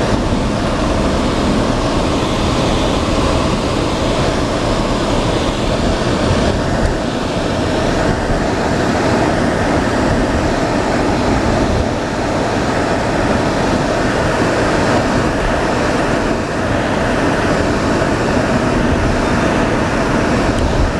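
A vehicle on the move: steady engine, tyre and wind rush with a low rumble, running evenly and loudly throughout.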